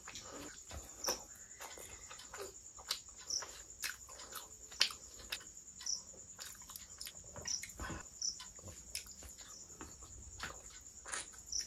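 Close-miked eating sounds: wet chewing, lip smacks and fingers working curry and rice, heard as many short, irregular sticky clicks. A steady high-pitched tone runs underneath.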